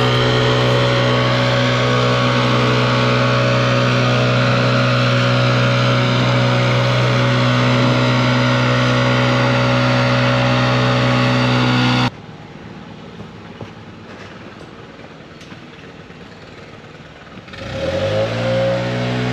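An engine runs steadily at high, constant revs, then stops abruptly about 12 seconds in, leaving a quieter stretch. Near the end an engine revs up quickly and settles back to a steady high note.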